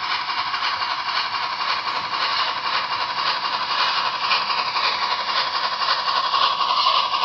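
Model steam locomotive's sound decoder playing a continuous steam chuff and hiss through its small onboard speaker as the model runs. It sounds thin, with little bass.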